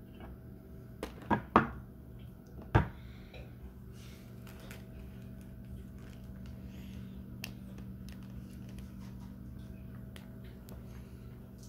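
Groceries being handled and set down on a table: three sharp knocks in the first few seconds, then light scattered taps and clicks. A steady low hum runs underneath.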